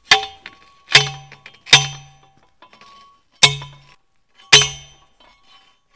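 Hand post driver pounding a steel fence post into the ground: five ringing metal clangs at uneven intervals.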